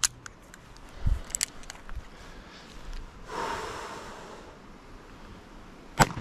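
A few handling clicks and knocks from a Smith & Wesson Model 327 .357 Magnum snub-nose revolver, then a single gunshot from it near the end.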